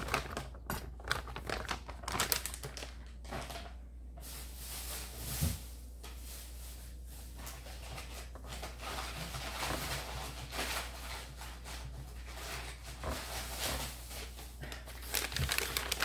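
Packaging rustling and crinkling, with scattered light clicks and knocks as items are unwrapped and handled; the rustling grows busier near the end.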